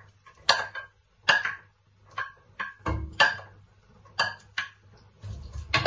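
Diced onion being knocked out of a dish into a pot of hot oil: about a dozen sharp, irregular taps and scrapes of the dish and utensil against the pot.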